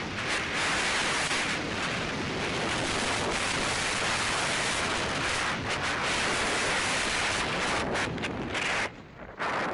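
Wind buffeting a helmet-mounted camera's microphone during a fast downhill ski run, a steady rush mixed with the hiss of skis on the snow, dropping away briefly near the end.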